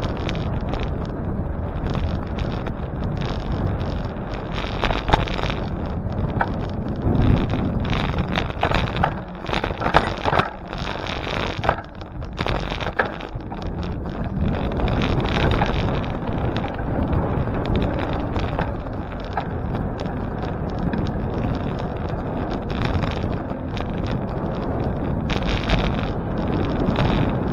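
Wind buffeting the microphone and road noise from a bicycle ride, a steady rushing noise with a run of short clicks and rattles in the middle.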